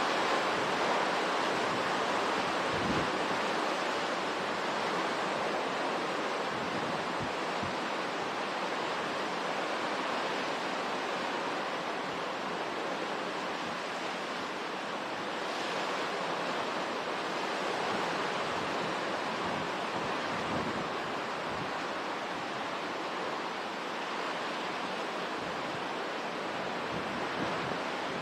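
Hurricane wind and heavy rain blowing as a steady rushing noise, with gusts now and then buffeting the microphone in low thumps.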